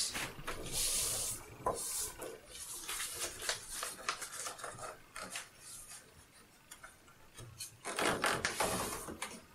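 Two sheets of paper laid together and folded twice by hand: papery rustling and the rub of fingers pressing the creases flat against a table. It is louder during the first two seconds and again near the end.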